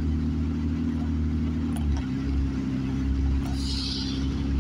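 Car cabin noise while driving on a wet road: a steady low engine hum with tyre and road noise. About two seconds in, the hum steps to a different pitch. Near the end there is a brief hiss.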